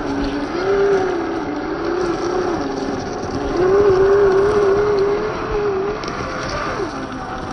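Electric motor and gear drivetrain of a 1/10-scale Traxxas TRX-4 RC crawler whining under throttle. The pitch rises and falls as the throttle changes, reaching its highest in the middle and dropping near the end.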